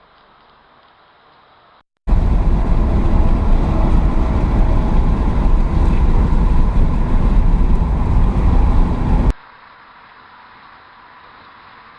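A car engine running close to the microphone, loud and steady, cut in sharply about two seconds in and cut off just over nine seconds in; faint background noise before and after.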